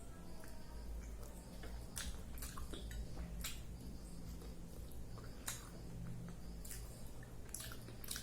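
A person eating idli soaked in sambar: soft wet chewing with a scattered series of short mouth clicks and smacks.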